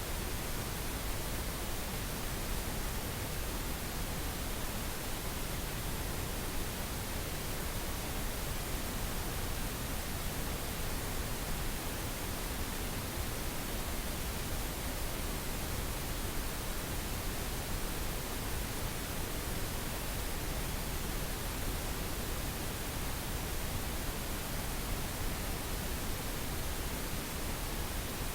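Synthesized pink noise: a steady, even hiss without changes.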